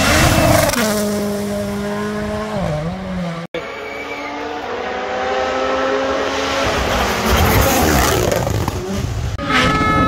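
Toyota GR Yaris Rally1 rally car's turbocharged engine at high revs on full attack, heard on several separate passes joined by sudden cuts. The pitch holds steady, then dips briefly at a gear change. After a cut, a long steady high-revving run grows louder as the car nears, and another cut comes near the end.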